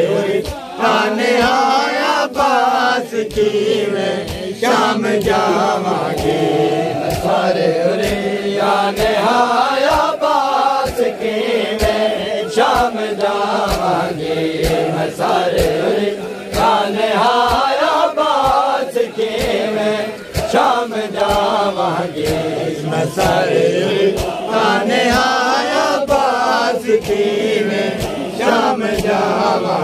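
Group of men chanting a Shia noha (Muharram lament) in unison, over a steady beat of hand-on-chest matam slaps.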